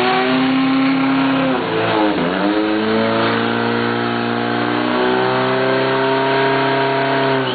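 Small engine of a portable fire pump running at high revs. Its pitch dips sharply and recovers about two seconds in, then holds steady.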